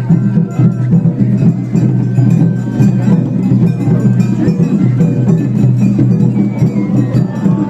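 Japanese shrine-festival music (matsuri bayashi): drums and small struck percussion playing a fast, steady, unbroken beat.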